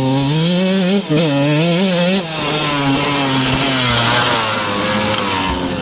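Motocross bike engine revving up and down as it is ridden, cutting out briefly about one and two seconds in, then holding a steadier note that slowly falls.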